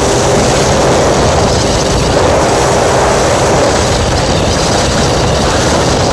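Outboard motor on a 21-foot flats boat running at cruising speed, with loud, steady wind rush over the microphone as the boat runs across the water.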